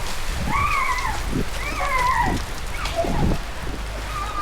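Steady rain, with an animal calling about four times, each call rising and then falling in pitch.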